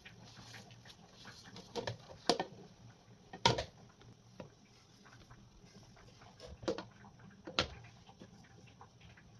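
Scattered knocks and clinks of kitchenware being handled during cooking, about half a dozen separate strikes, the loudest about three and a half seconds in, over a low steady hum.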